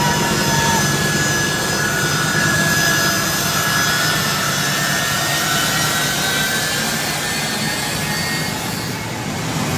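Turbofan jet engines of a US Air Force C-17 transport running at close range: a loud, steady roar with a high whine held over it.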